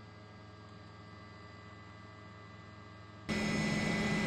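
Faint steady hum with a few fixed tones; about three seconds in, a much louder steady rushing noise with constant tones cuts in abruptly.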